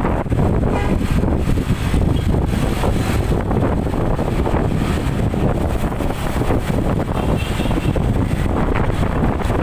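Strong wind buffeting on the microphone over steady vehicle and road noise while riding along with traffic.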